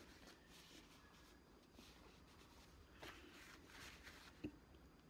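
Faint chewing of soft fruit, with quiet wet mouth sounds and one short click near the end.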